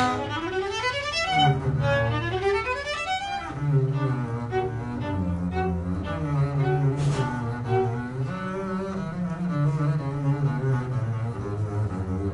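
Viola and double bass playing a classical duet. For the first few seconds the viola plays quick rising and falling runs over the bass; then both move in longer held notes, with the bass stepping underneath.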